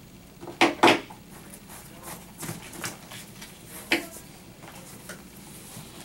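Scattered sharp clicks and light knocks, two close together just under a second in and another about four seconds in, from a leather fielder's glove and small lacing tools being handled while its lacing is pulled out.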